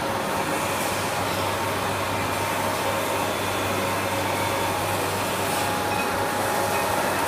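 Steady din of metal-cutting machine tools running in an axle machining shop: an even hiss with a low hum underneath and a couple of steady whining tones.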